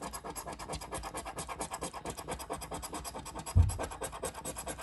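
A coin scratching the latex coating off a paper scratch-off lottery ticket on a tabletop in rapid, even back-and-forth strokes. A single dull thump about three and a half seconds in.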